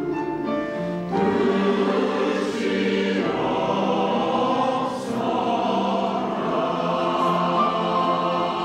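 Women's choir singing held notes; the voices come in louder about a second in.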